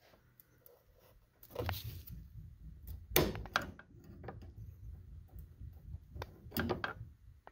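A steel pry bar levering against the clutch master cylinder hardware to force it fully into place, with scraping and several clunks. The loudest clunks come about three seconds in and again near the end.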